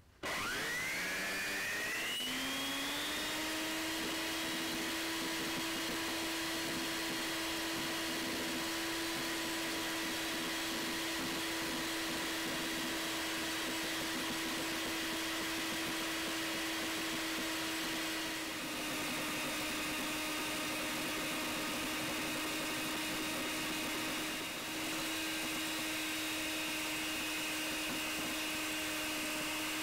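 Electric hand mixer with a single beater whipping softened butter for maple butter. The motor spins up over about three seconds, then runs steadily. Its pitch drops a little about 18 seconds in and comes back up about 25 seconds in.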